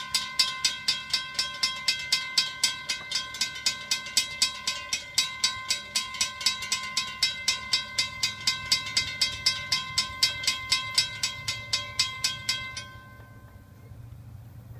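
Railroad crossing warning bell ringing in a fast, even series of about three to four strokes a second while the gate arms lower, warning of an approaching train. It stops abruptly about 13 seconds in, once the gates are down, leaving a low steady hum.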